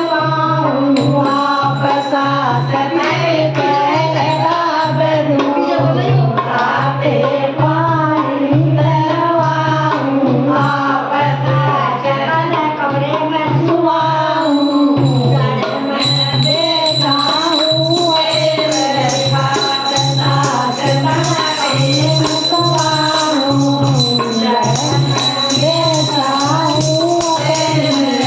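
Haryanvi bhajan: voices singing a devotional folk melody over a steady jingling percussion beat.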